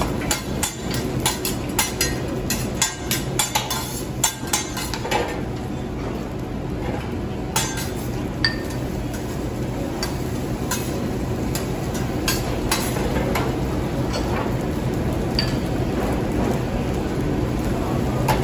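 Metal spatula and fork tapping and scraping rapidly on a steel teppanyaki griddle as fried rice is chopped and mixed, easing after about five seconds into scattered clinks as the rice is scooped into bowls. A steady hum runs underneath.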